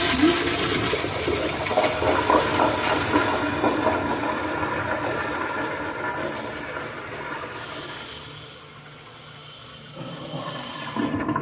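Kohler Kingston wall-hung toilet flushing through its flushometer valve: a loud rush of water into the bowl that fades away gradually over several seconds.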